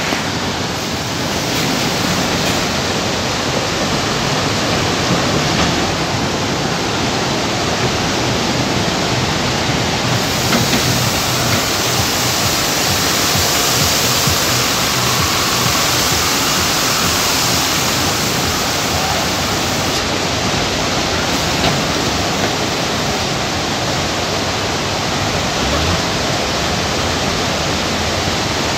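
Floodwater of the swollen Beg Khola, a Himalayan mountain river, rushing over boulders and rapids: a loud, steady rush of water.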